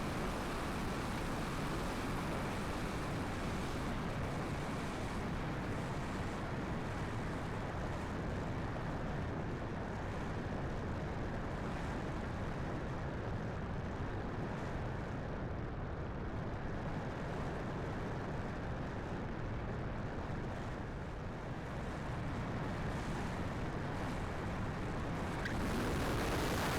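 Strong wind buffeting the microphone: a steady, rushing noise with no clear tone in it.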